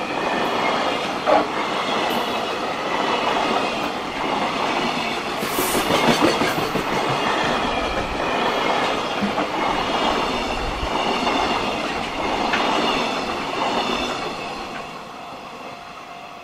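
Freight train's container flat wagons rolling past close by with a steady rush of wheel-on-rail noise and a sharp click about a second in. The noise fades over the last two seconds as the end of the train goes by.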